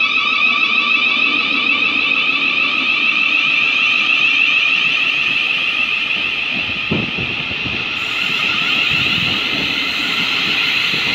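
Thameslink electric train pulling slowly out of the platform, its traction equipment giving a steady high-pitched electric whine of several tones over a low rumble. A single knock about seven seconds in.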